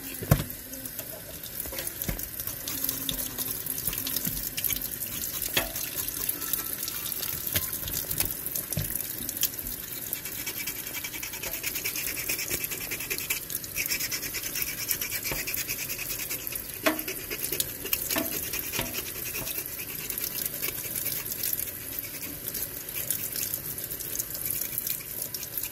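Kitchen tap running into a stainless steel sink while the singed skin of a squirrel carcass is scraped clean with a knife under the stream: steady water with a rapid, scratchy scraping and a few light knocks.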